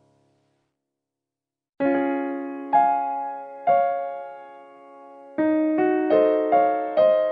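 Background music on a piano-like keyboard. After nearly two seconds of silence, chords are struck one at a time, each ringing and fading, about eight in all, the later ones coming more quickly.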